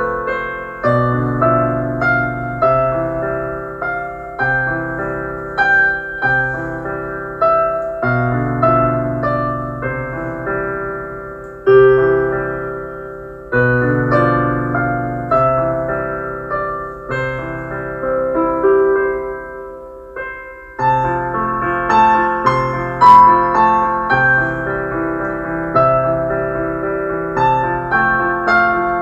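Background piano music: a gentle melody over repeating chords, with a brief pause about two-thirds of the way in.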